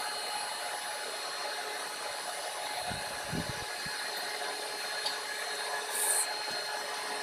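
Charcoal melting furnace burning hard around a crucible, a steady hiss of air through the glowing coals, with a few dull thumps about three seconds in.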